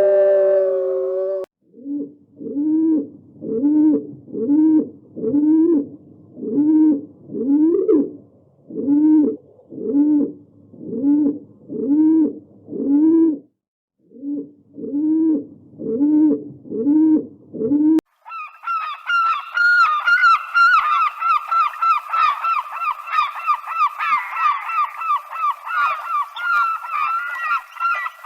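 Waterfowl calling: one bird gives a regular series of honking calls, each a short rise and fall, with a brief pause partway through; then, after a sudden cut, a whole flock calls at once in a dense, higher-pitched honking chorus. A drawn-out howl fades out in the first second and a half.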